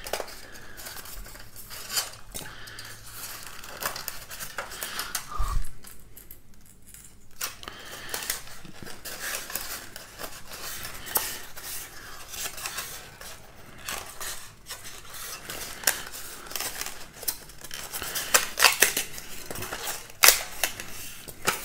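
Radiosonde's polystyrene foam casing being prised and broken open by hand: scraping and cracking with many sharp clicks, clustering more densely near the end.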